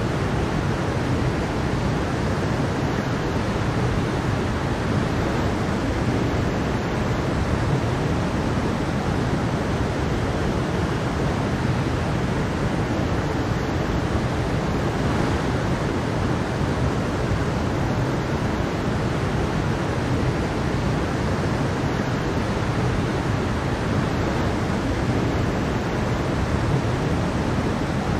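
Mountain stream with a small waterfall, water rushing and splashing over rocks in a steady, full rush.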